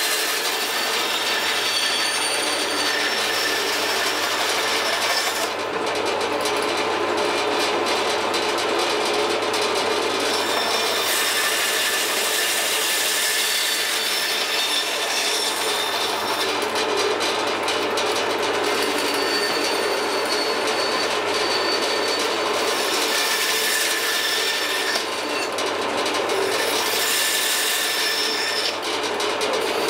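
Electric band saw running and cutting dried shark fin: a continuous harsh rasp with a squealing whine. Its high hiss drops away and returns several times as pieces are fed into and drawn off the blade.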